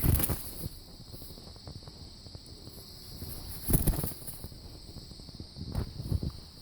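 Steady high-pitched trilling of insects, with three brief bursts of rustling noise: one at the start, one about four seconds in and one near the end.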